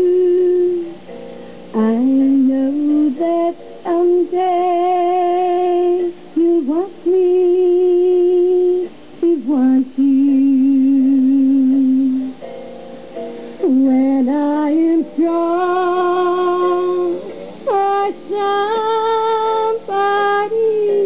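A woman singing solo into a microphone. She holds long wordless notes with vibrato, stepping between low and high notes, with quick leaps up and down near the end.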